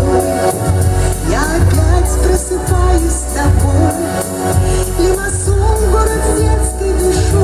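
A woman singing a waltz into a microphone over amplified instrumental accompaniment, her wavering melody held over a steady bass.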